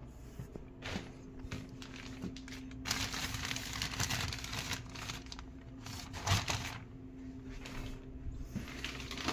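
Plastic sheet cover on a metal tool chest crinkling and rustling as it is handled, with scattered light clicks and knocks; the crinkling is densest for a couple of seconds near the middle.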